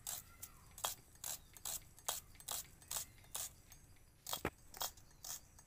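An onion being sliced by hand against a curved blade, each cut a short, crisp snap, about two or three a second, with one louder knock about four and a half seconds in.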